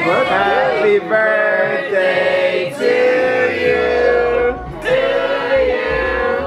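Singing with music: voices holding long notes in phrases of one to two seconds, with short breaks between them.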